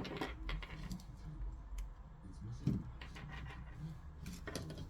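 Scattered light clicks and taps of small parts and tools being handled during the repair of a portable Bluetooth speaker, with one duller knock a little past halfway.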